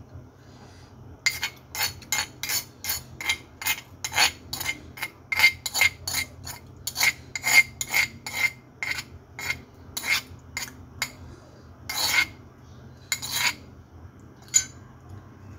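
Metal spoon scraping and clinking against a stone mortar (cobek), collecting the last of the sambal: a quick run of sharp scrapes, about two to three a second, thinning out to a few strokes near the end.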